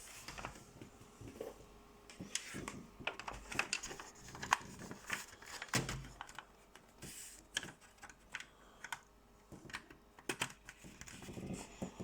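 Irregular light clicks and taps, several a second in places and sparser in others, with some soft rustling between them.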